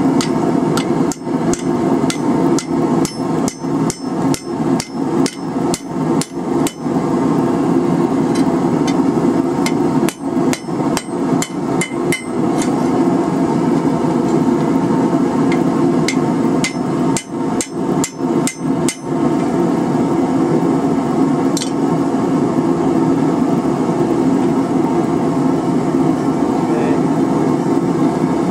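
Hand hammer striking red-hot rebar on the anvil horn, bending the holdfast's arm to shape: three runs of blows at about two a second with pauses between, and a single blow later on. A steady low drone runs underneath throughout.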